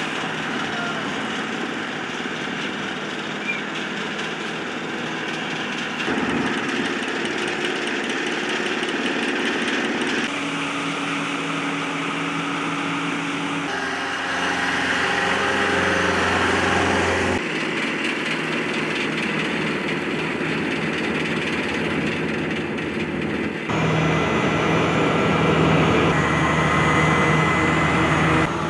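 Asphalt paving machinery, an asphalt paver and a ride-on road roller, running steadily, heard in several short clips. The engine hum changes abruptly every few seconds.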